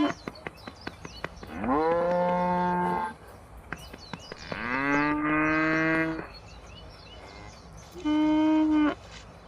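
Cattle mooing: three long, steady moos, each rising at the start and then held, the last one shorter.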